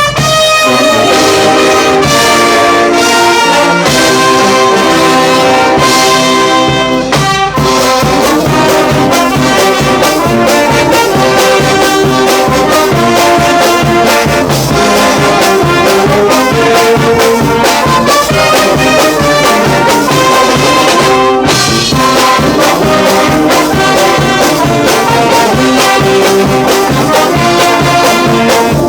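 Brass band playing a tune, trumpets and trombones over a steady drum beat, with a brief break about seven seconds in and again a little past twenty seconds.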